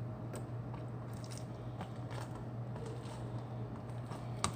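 Homemade glue slime squished and pulled in the hands: soft squelching and faint crackling, with a few light clicks.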